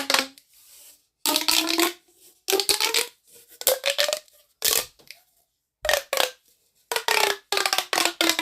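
Plastic pop tube fidget toys being stretched and squashed, each pull making a rapid run of clicks with a buzzing tone that slides up and down. They come in about six short bursts with pauses between.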